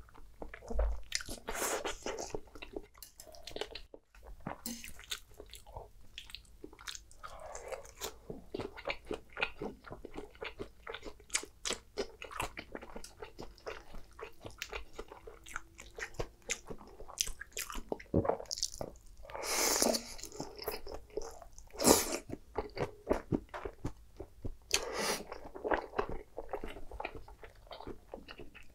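Close-miked eating: biting and chewing a crisp fried patty and creamy pasta, with many small crunches and wet mouth sounds. There are a few longer, louder stretches, the loudest about twenty seconds in.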